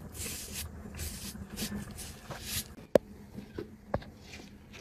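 A cloth towel rubbing and wiping across a face in soft swishes, followed by two sharp clicks about a second apart near the end.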